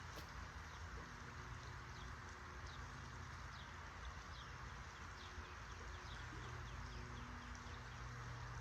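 Creek water running steadily, with many short, high bird chirps repeating throughout. A low hum sits underneath and grows louder after about six seconds.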